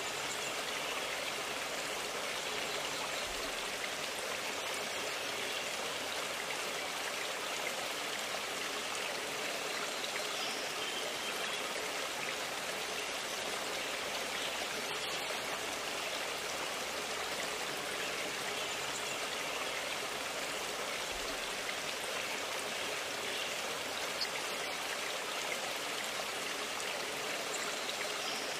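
Steady rush of a stream flowing, an even watery hiss.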